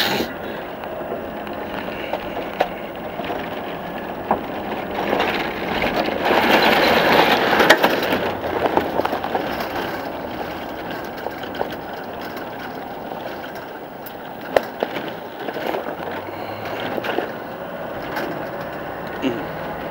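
Moving vehicle carrying the team: engine and road rumble with rattling and small knocks inside, swelling louder for a few seconds in the middle.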